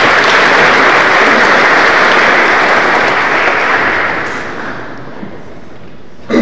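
An audience applauding steadily, the clapping dying away between about three and a half and five seconds in. A sudden loud thump comes right at the end.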